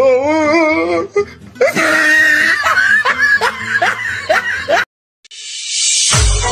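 Dubbed-over comic audio: a warbling, wavering pitched voice sound, then a run of short repeated vocal strokes. After a brief drop-out, electronic music with heavy bass beats starts near the end.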